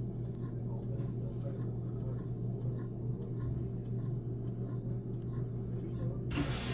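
Whirlpool top-load washing machine running its calibration cycle: the drive motor hums steadily as the basket agitates. Near the end a hiss of water suddenly starts as the machine begins spraying water into the tub.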